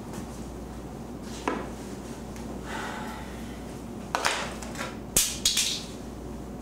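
Hard objects knocked and set down on a stone countertop: a single knock, then a cluster of sharp clinks and knocks about four to six seconds in. A low steady hum lies under it.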